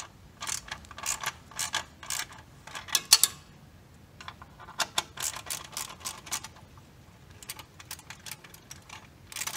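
Socket ratchet clicking in short runs as it is swung back and forth to loosen a 12 mm exhaust clamp nut. The runs come in the first three seconds and again around five to six seconds in, with scattered single clicks after.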